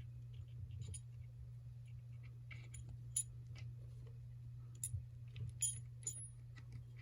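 Faint, scattered metallic clicks and clinks of a trick bolt puzzle being twisted and handled, the nut turning and knocking on the bolt at irregular moments, over a steady low hum.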